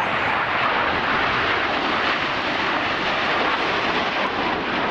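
Jet engines of a formation of BAE Hawk T1 aerobatic jets flying past: a steady rushing noise that holds at an even level throughout.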